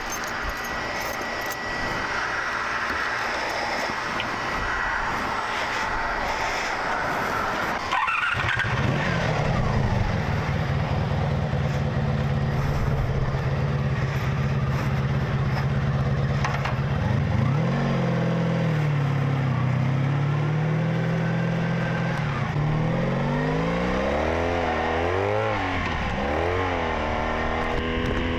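1985 Honda Magna 700's V4 engine with drilled-out exhaust pipes, pulling away and accelerating. It is faint at first and gets loud about eight seconds in, then runs steadily before its revs rise and fall through the gears, climbing several times near the end.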